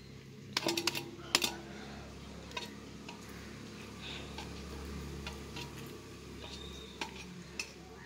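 A stainless steel plate clinking and tapping as honeycomb is handled and squeezed over it, with two sharp clinks in the first second and a half that ring briefly, then scattered lighter taps.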